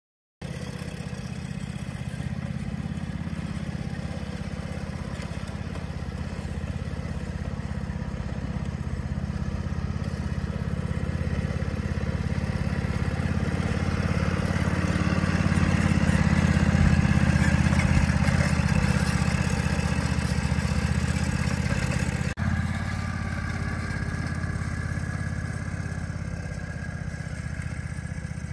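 John Deere Gator utility vehicle's engine running steadily as it tows a seeder past. It grows louder to a peak a little past halfway, then fades as the vehicle moves away.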